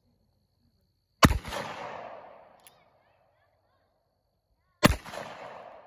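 Two pistol shots from an Uberti Cattleman bird's-head single-action revolver chambered in .357, firing .38 Special rounds, about three and a half seconds apart. Each sharp crack is followed by an echo that dies away over about a second and a half.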